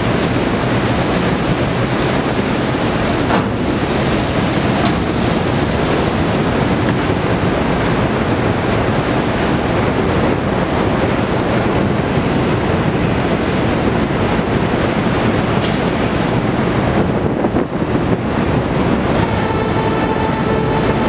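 Steady, loud machinery and sea noise on a pelagic trawler's stern deck as the mackerel-filled codend is winched up the stern ramp. A thin high squeal sounds twice, for a few seconds each time, and near the end a whining tone with several pitches joins in.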